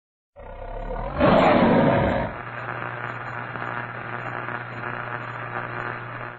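Big-cat roar sound effect, loudest about a second in and lasting about a second, trailing into a steady low hum that cuts off just before the end.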